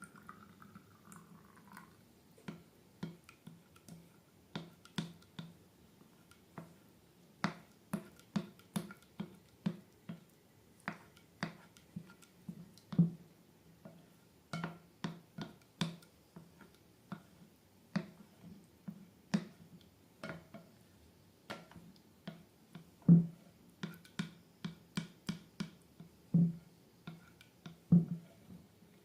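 Slime being worked by hand, giving a string of short wet clicks and pops, one to three a second, a few of them louder.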